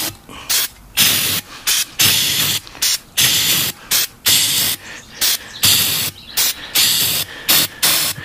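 Aerosol can of starting fluid spraying in a quick series of short bursts, about a dozen, some brief and some over half a second long. The ether is being sprayed into an ATV tire on its rim, to be ignited to seat the bead.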